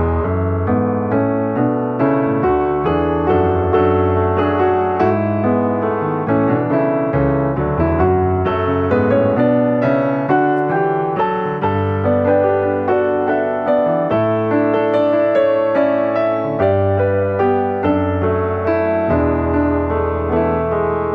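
Piano music with a steady flow of notes over held low bass notes.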